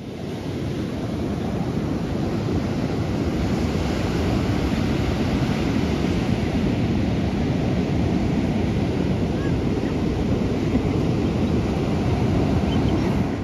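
Ocean surf breaking on the shore, a steady rushing wash of waves, with wind on the microphone.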